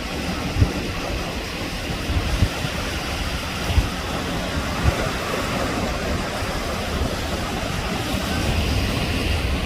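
Ocean surf washing steadily, with wind buffeting the microphone in a low rumble and a few brief thumps.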